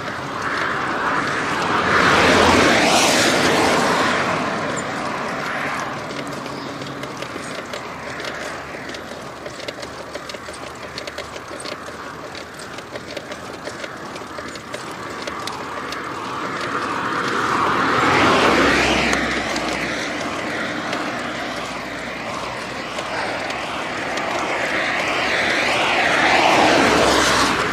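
Cars passing on the road, three times: each one swells up and fades away, with a steady rushing noise in between.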